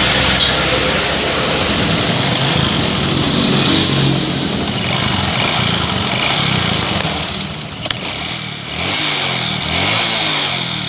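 Honda Supra X 125's single-cylinder four-stroke engine running with a rough, rattling sound, its revs rising and falling several times in the second half. The mechanic takes the rattle for a damaged piston.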